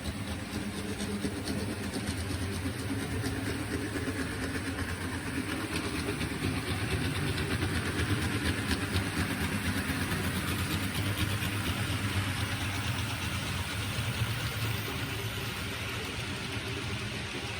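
Model trains running on a layout: a steady motor hum with rapid fine clicking from the wheels on the track. It grows louder toward the middle as a train comes close, then eases off.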